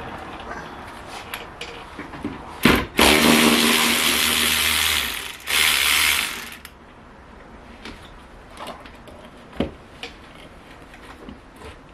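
A handheld power tool runs twice, for about two and a half seconds and then about a second, with a steady motor hum under a harsh whirr. Light clicks and knocks of tools and parts come before and after.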